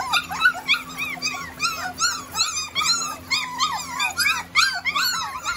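A litter of puppies whining and yipping together: a rapid run of short, high cries that rise and fall, several a second and overlapping one another.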